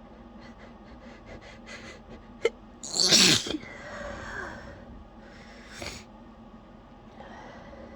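A woman sneezes once, loudly, about three seconds in, after a series of short, catching in-breaths. A softer voiced breath trails off after it, and a couple of quieter breaths follow.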